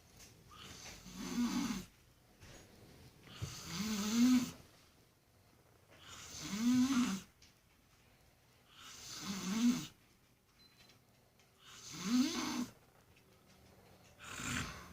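A baboon snoring in a steady rhythm, about one snore every two and a half seconds. Each snore carries a low tone that rises and then falls.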